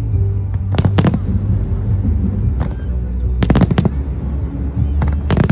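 Aerial fireworks bursting in three quick clusters of sharp bangs, about a second in, about three and a half seconds in and near the end, over a steady low rumble.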